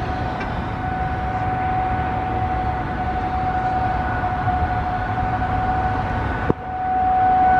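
Federal Signal 508-128 outdoor warning siren sounding the alert signal: one steady, unwavering tone that swells slightly over a low rumble. A sharp click comes near the end, after which the tone is louder.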